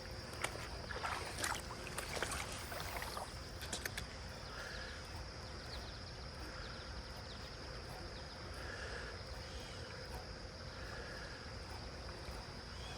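Creek water running under a steady high insect trill, with faint short chirps every second or two. A cluster of clicks and rustles sounds in the first few seconds as the fishing rod and reel are handled.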